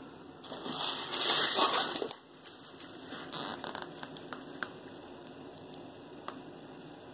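Crinkling, rustling handling noise: a loud burst lasting about a second and a half, followed by lighter crackles and a few sharp clicks.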